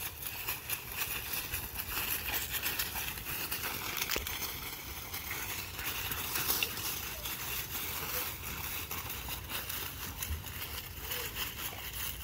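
Dry fallen leaves crunching and rustling under puppies' paws as they run, jump and scramble after a flirt-pole lure dragged through the leaves: a continuous crackle made of many small crunches.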